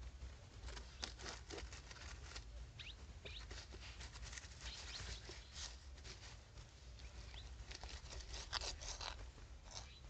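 Faint, irregular rustling and clicking of young rabbits moving about in wood-shaving bedding and nibbling greens, over a low steady hum.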